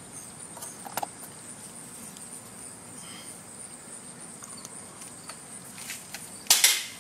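Steady high-pitched insect trill, with a short click about a second in and a loud rustling scrape near the end.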